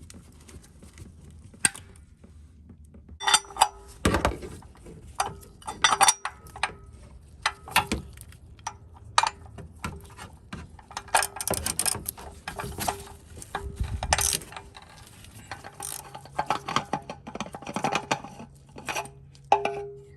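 Socket ratchet clicking in short irregular bursts, with tool clinks, while the cartridge oil filter housing cap of a Toyota Sienna is worked loose.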